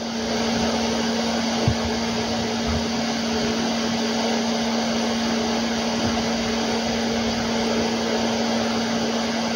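Hot air rework station blowing a steady rush of air with a low hum, coming up to full strength just as it starts, as it heats the mainboard around the LCD connector.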